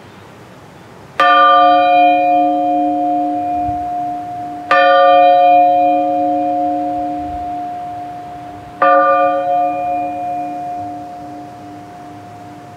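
Small church bell struck three times by swinging its clapper by hand, strokes about four seconds apart. Each stroke rings out with several tones and slowly fades, the deepest note lasting longest.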